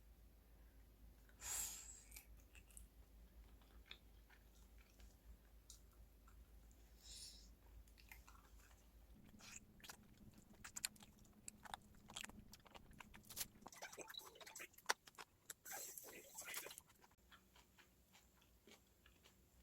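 A person eating close to the microphone: faint chewing and crunching with scattered small clicks, busiest in the second half.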